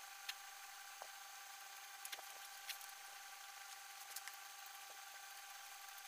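Faint eating sounds: a few short, sharp clicks and smacks from chewing and from a fork and spoon working through noodles, over a steady low hiss.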